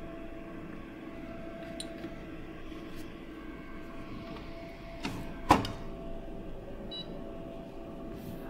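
Steady hum of a benchtop spectrophotometer, with a few light clicks and one sharp knock about five and a half seconds in as a cuvette is handled and loaded into the reader.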